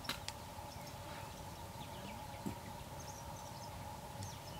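Faint outdoor ambience: a steady low hum with a few faint, high bird chirps and a couple of small clicks.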